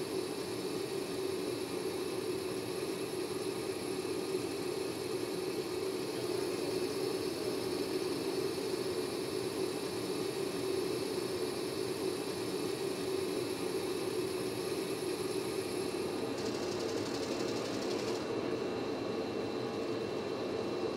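Powder-bed 3D printer running: a steady mechanical hum and whir of its drives and recoater carriage, with no distinct strokes. The higher hiss thins out about three quarters of the way through.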